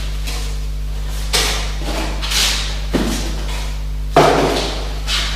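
Cardboard packing pieces being pulled out and handled: a few scrapes and rustles, then a sharper knock about three seconds in and the loudest thud about four seconds in. A steady electrical hum lies underneath.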